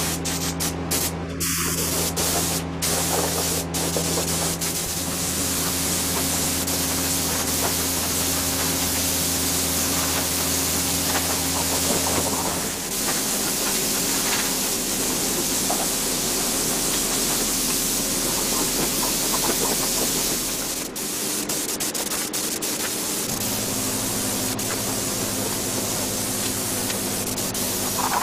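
Compressed-air spray gun hissing steadily as it sprays Raptor liner bed-liner coating.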